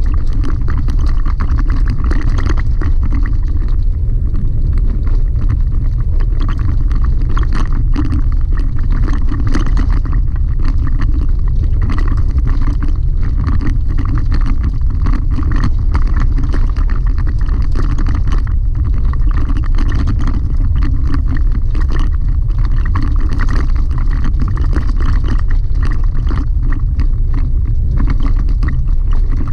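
Chevy Colorado ZR2 pickup driving on a rough gravel road, heard from inside the cab: a steady low rumble of engine and tyres with frequent clicks and rattles.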